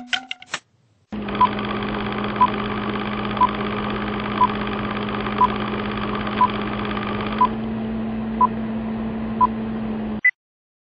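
Old-film countdown leader sound effect: a steady film-projector whirr with a short beep once a second, nine in all, then one higher beep before it cuts off suddenly. A few brief clicks come before the whirr starts.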